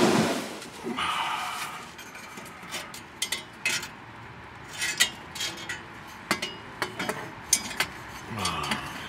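Scattered sharp metallic clicks and clinks from hands and tools working at a hydraulic line fitting under a truck, a few irregular ticks spread over several seconds.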